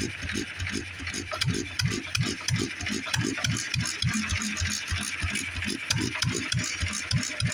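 International Harvester Type M single-cylinder stationary engine running and driving line-shaft machinery: an even run of low thumps, about three to four a second, over a steady hiss.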